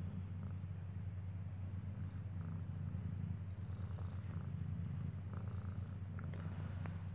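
A cat purring steadily while a kitten nurses at its mother, with a few faint clicks in the last few seconds.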